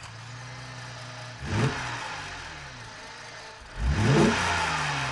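Motor vehicle engine sound with two loud swells, about a second and a half in and about four seconds in, each rising and then dying away, like vehicles driving past one after another.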